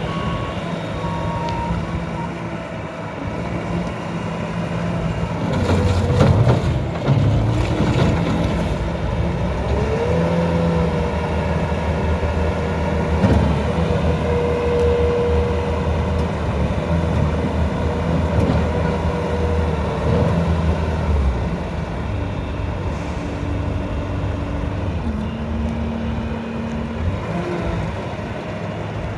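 Bobcat S650 skid steer's diesel engine running and changing speed as the loader is worked. A held hydraulic whine rises about ten seconds in and lasts around ten seconds, and a few knocks come around six to eight seconds in.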